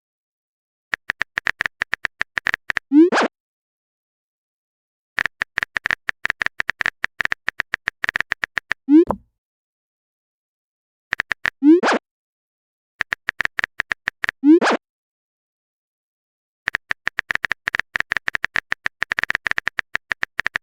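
Runs of rapid typing clicks from a chat-app sound effect, each run ending in a short rising blip as a message is sent: four such sends, with silence between the runs.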